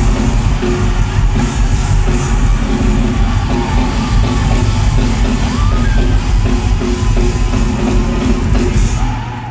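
Live rock band playing loudly, with the crowd yelling over the music. The band stops abruptly near the end.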